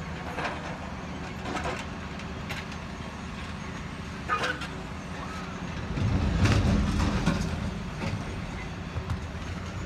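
Diesel engines of heavy earthmoving machinery running steadily while an articulated dump truck raises its bed to tip a load of rocks, swelling into a louder rumble about six seconds in, with a few scattered knocks.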